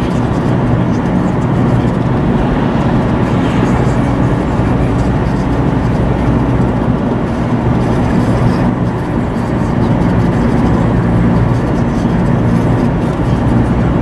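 Steady road noise inside a moving car: a low engine drone and tyre rumble on the pavement, holding an even level throughout.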